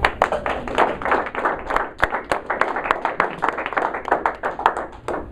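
A small audience applauding, a handful of people clapping in quick, uneven claps.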